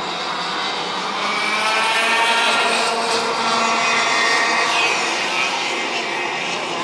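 Several two-stroke racing kart engines (Vortex ROK 125 cc) running hard as a pack of karts goes by. Several engine notes overlap, each rising and falling in pitch, and they are loudest around two to four seconds in.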